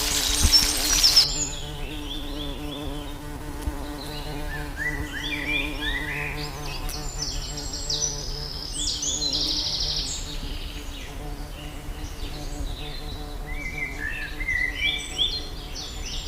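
Frying sizzle that stops about a second in, then a steady insect-like buzz with clusters of quick, high bird chirps over it.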